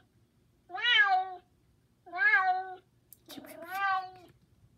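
Recorded cat meows played from an Amazon Echo Dot smart speaker: the same short meow twice, then a longer, different meow about three seconds in.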